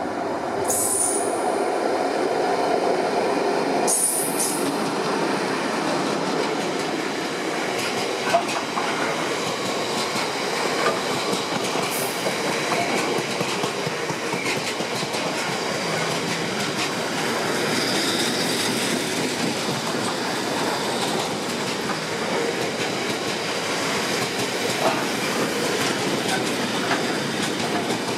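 Freight train of bogie tank wagons rolling past at speed behind a diesel locomotive, a steady loud rumble with clickety-clack of wheels over rail joints. Brief high-pitched wheel squeals come about a second in, again around four seconds, and once more near the middle.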